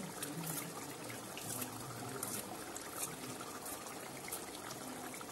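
Thick yogurt fish curry simmering in a pan over a low gas flame: a steady bubbling, with small pops here and there.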